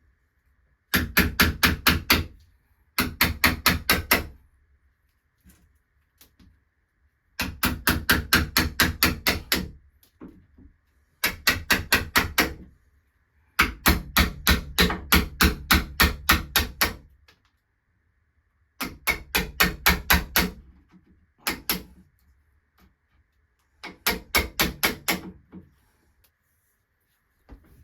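Hammer rapidly tapping a wood chisel to cut out the striker-plate recess in the door jamb. The blows come about seven or eight a second, in eight separate runs of one to three seconds each with short pauses between.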